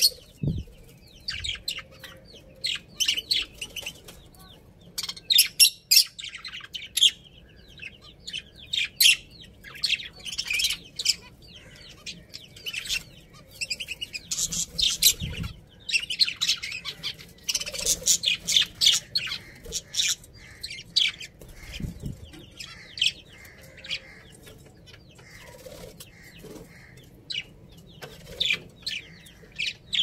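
A small flock of budgerigars and zebra finches chirping in quick, overlapping bursts, with a few low thumps.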